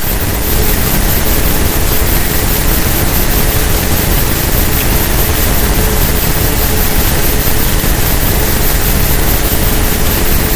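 Loud, steady rushing noise that covers all pitches, with a faint hum underneath; it gets slightly louder about half a second in and then holds level.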